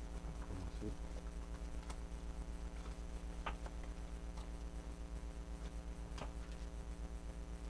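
Steady low electrical hum, with a few faint clicks and rustles from handling a paper sticker sheet and small plastic toy parts.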